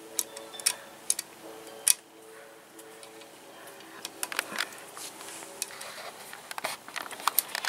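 Irregular small clicks and taps of fingers handling a metal sewing-machine bobbin as it is threaded and fitted onto the bobbin winder spindle.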